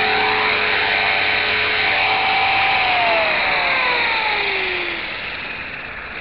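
Small electric RC helicopter with wooden main rotor blades, its motor and rotor whining steadily, then winding down, falling in pitch from about three seconds in as the rotor spools down.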